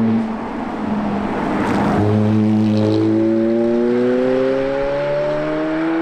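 Ferrari F430's 4.3-litre V8 accelerating hard along the road, its exhaust note climbing steadily in pitch as it pulls up through the revs. The first two seconds are mostly a rushing road and engine noise before the rising note takes over.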